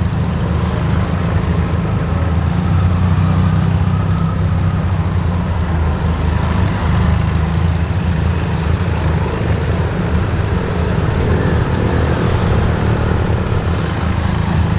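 Benelli adventure motorcycles running at low speed as several pass one after another through a cone course, a steady low engine rumble.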